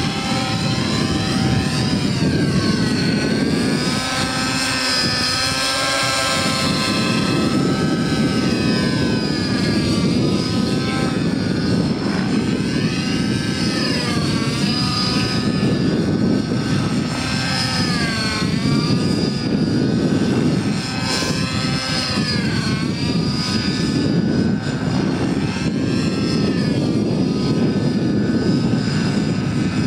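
Radio-controlled scale helicopter in flight, its motor and rotor whine repeatedly rising and falling in pitch as it turns and passes, over a steady rush of rotor noise.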